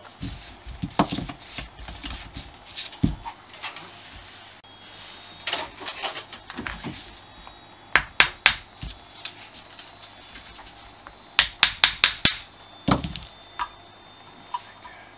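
Screwdriver and carburettor parts clicking and knocking as a Honda CB125S motorcycle carburettor is taken apart and its float bowl unscrewed. Irregular sharp metal taps, with a quick run of about six taps near the end.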